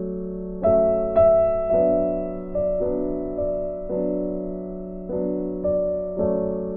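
Background piano music: a slow line of struck notes over a held low tone, each note left to ring and fade.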